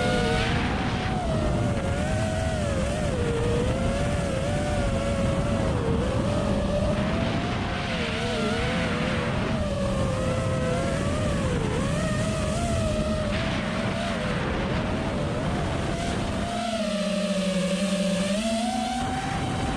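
Brushless motors and propellers of a 5-inch FPV racing quadcopter (2008-size 1950 KV motors on 6S) whining in flight, the pitch rising and falling constantly with throttle. Near the end the rumble eases for a couple of seconds and a lower, steadier tone holds before the whine climbs again.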